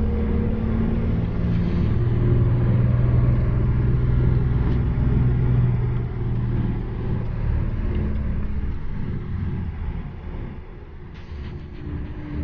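Road vehicle running on the road: a steady low engine hum over road noise, its pitch shifting a few times and dropping off for a moment near the end.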